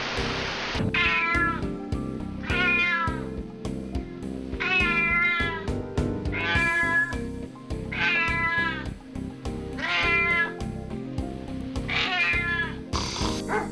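A cat meowing over and over, about seven falling calls one to two seconds apart, over background music.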